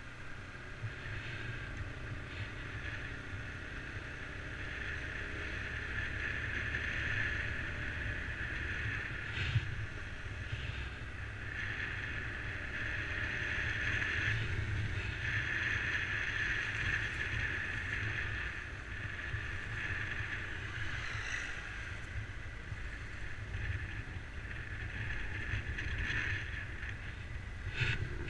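Wind buffeting the camera microphone on a moving motorcycle, over the steady running of a Honda CBR125's small single-cylinder engine, rising and easing slowly with speed. Near the end a car passes close by.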